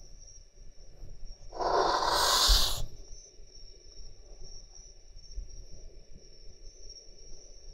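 An adult cat hissing once at a kitten: a single sharp hiss lasting about a second and a half, starting about one and a half seconds in. A faint steady high whine runs underneath.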